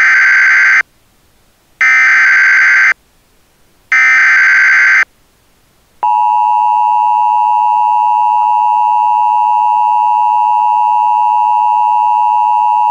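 Emergency Alert System tones: three bursts of about a second each of the SAME digital header, a buzzy data warble, then after a short gap the steady two-tone EAS attention signal, which starts about six seconds in and holds.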